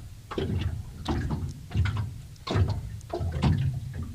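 Small waves slapping against the hull of a small anchored fishing boat, in irregular splashy thuds roughly once a second.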